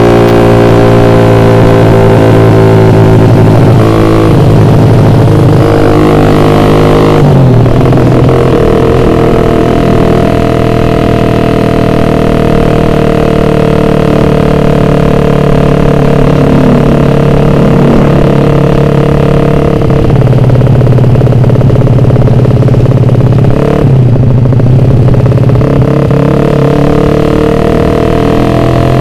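Suzuki Satria F150's ported single-cylinder engine ridden at speed through a very loud road-race exhaust. The revs climb, drop briefly a couple of times early on, then hold steady, with two more short dips later.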